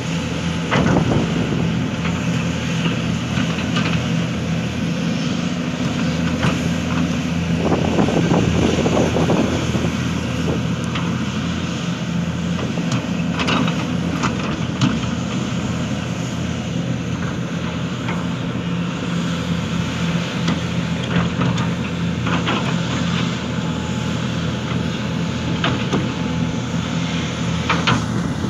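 Hitachi Zaxis 490 LCH excavator's diesel engine running steadily while it works, with scattered sharp knocks and a louder stretch of noise about eight seconds in.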